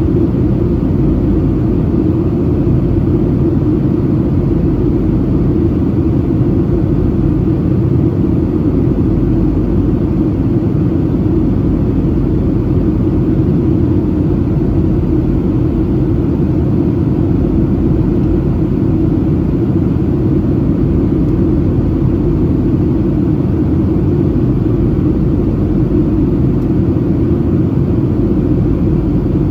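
Steady cabin noise of a Boeing 737-700 in flight: the drone of its CFM56-7B turbofans and the rush of air past the fuselage, heard inside the cabin, deep and unchanging.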